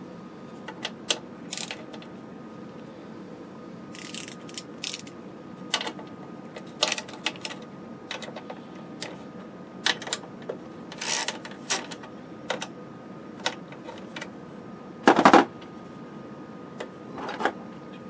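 A nut driver backing quarter-inch sheet-metal screws out of a galvanized steel chassis plate: scattered metal-on-metal clicks and scrapes, with one louder clunk about fifteen seconds in.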